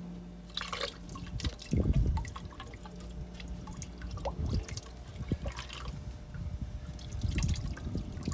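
Water poured from a small cup into a hose and bucket, dripping and splashing irregularly, to prime a 12 V RV diaphragm water pump so it doesn't run dry. A steady low hum sits underneath.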